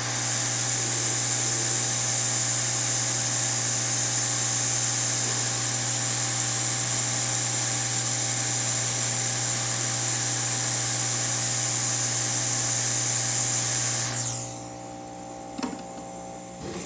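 Hot-air rework station blowing steadily over a surface-mount chip on a circuit board, a loud hiss over a low motor hum. It cuts off about 14 seconds in, and a light click follows near the end.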